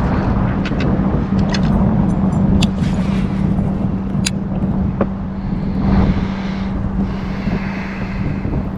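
Strong wind buffeting the microphone in a dense low rumble, with a steady hum underneath and scattered light clicks and knocks.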